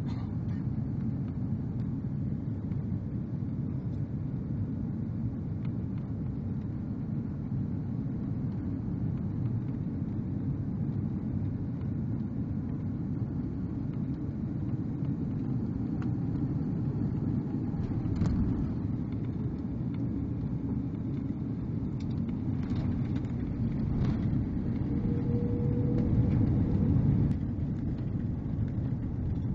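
Cabin noise inside an Airbus A330-200 landing: a steady low rumble of engines and airflow through touchdown and the roll along the runway, with the ground spoilers raised. A single knock comes partway through, and near the end the rumble grows louder for a few seconds, then drops suddenly.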